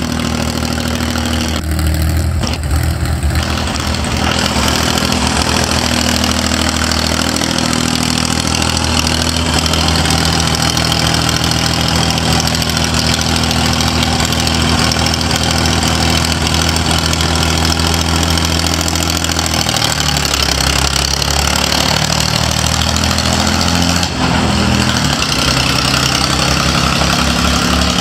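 McCormick International D-326 tractor's diesel engine running loudly and steadily, its note shifting a few times as the tractor is driven off.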